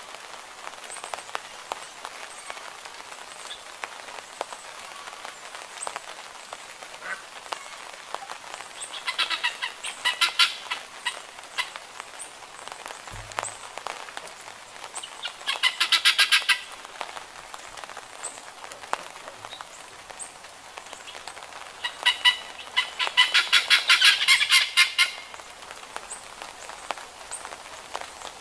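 Helmeted guineafowl calling in three bouts of fast, harsh repeated notes, the last and longest a little past the middle, over a steady patter of light rain.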